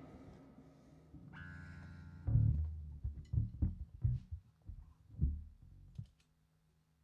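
An electric guitar chord rings out and dies away, then amplifier hum and a run of about a dozen irregular low thuds and bass notes as the band plays loose notes between songs.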